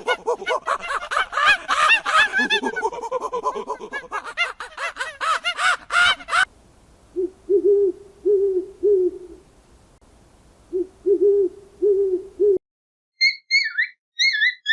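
A run of animal calls. For about six seconds there is a dense chorus of high, chattering calls. After a sudden cut come low hoots in short runs of two or three, and near the end a few brief high chirps.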